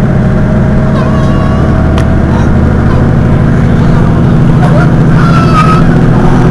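Mercedes-Benz Citaro city bus's rear-mounted diesel engine idling steadily while the bus stands at a stop.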